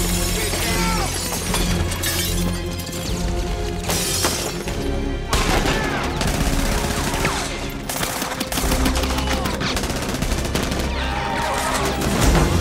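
Film soundtrack: a long barrage of automatic gunfire from many rifles firing at once, over a dramatic music score.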